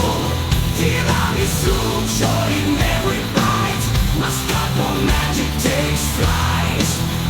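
Instrumental passage of a heavy rock song: distorted electric guitars, bass and drums at a steady driving beat.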